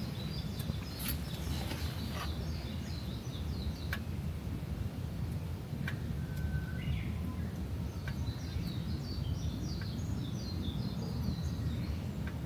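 Small birds singing in quick runs of repeated chirps, once in the first few seconds and again in the second half, over a steady low rumble and a few scattered sharp clicks.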